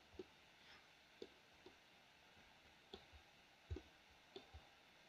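Faint, scattered computer mouse clicks, about half a dozen, against near silence.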